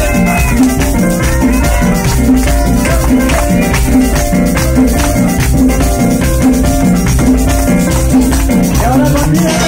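Loud dance music with a steady bass beat, held instrumental notes and regular percussion.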